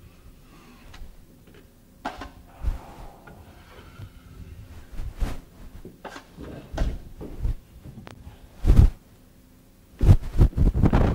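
Irregular knocks and thumps, a few at a time, with a quick run of them near the end.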